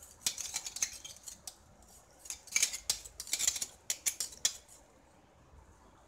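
A metal spoon scraping and clinking inside a steel tumbler in quick strokes, in two bouts over the first four and a half seconds, then stopping. The spoon is working milk around the tumbler to loosen the leftover ground paste.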